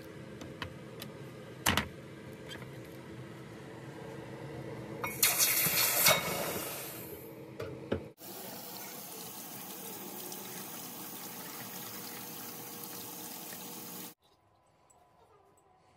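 A knock as the cast gold bar is handled on the block, then a loud hiss for about two seconds as the hot bar is quenched in a dish of water. Then tap water runs steadily onto the bar in a steel sink for about six seconds and is cut off suddenly near the end.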